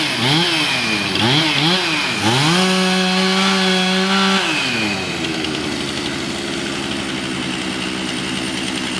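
Chainsaw engine blipped up and down several times, then held at full throttle for about two seconds before dropping back to a steady idle.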